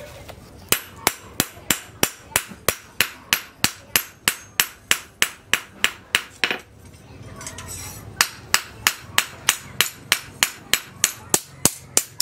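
Hand hammer striking a steel knife blade made from a tractor plough disc on a steel-post anvil: steady sharp blows about three a second, with a pause of about a second and a half past the middle before they resume.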